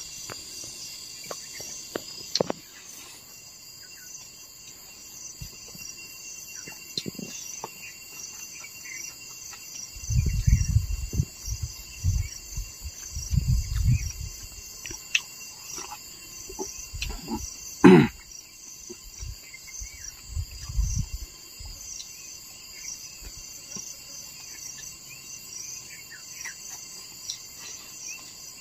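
Insects chirring steadily in a high, pulsing drone throughout. Over it come scattered light clicks, several runs of low thumps around the middle, and one sharp knock about two-thirds of the way through, the loudest sound here.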